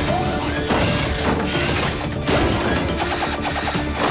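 Cartoon action sound effects of metal clanking and crashing over an orchestral action score, with a quick rattling run about three seconds in.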